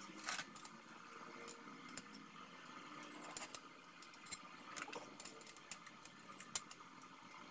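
Light metal clicks and knocks at irregular intervals as an angle grinder and small steel parts are handled and fitted into a welded steel frame; the grinder is not running.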